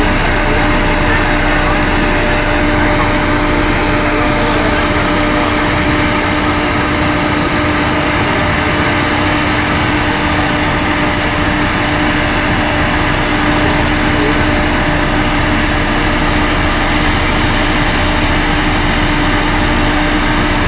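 Oil drilling rig machinery running steadily: a loud, even engine drone with a constant hum under it.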